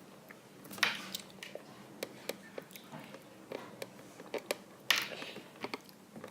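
Light plastic clicks and taps from a small Kinder Surprise toy being handled and set bouncing, with two louder short rustles about a second in and near five seconds.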